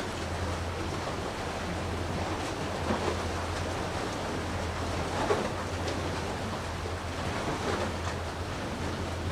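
Seawater washing and lapping in small, soft surges about every two seconds, over a steady low rumble.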